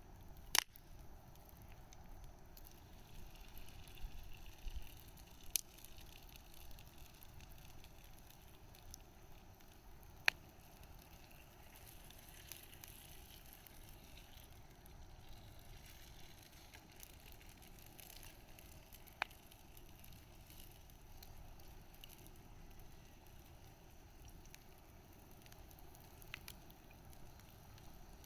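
Wood bonfire burning with a faint steady crackle and hiss, broken by a few sharp pops from the burning wood, the loudest about half a second in.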